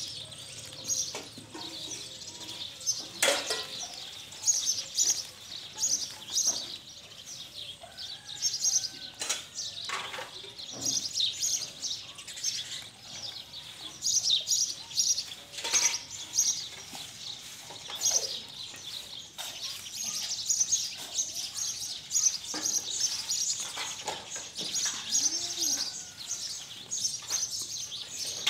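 Small birds chirping and twittering continuously in a busy chorus. Now and then there are short sharp crunches and snaps as goats tear and chew green fodder stalks from a metal bowl.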